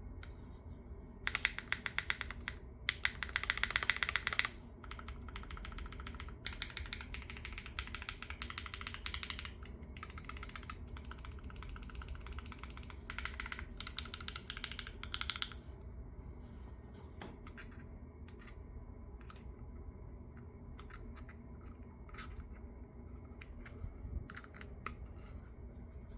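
Typing on a Neo60 Core mechanical keyboard with an FR4 plate, full foam fill and 一懷 庭外茶 switches. Fast runs of keystrokes, loudest a few seconds in, give way after about fifteen seconds to scattered single key presses.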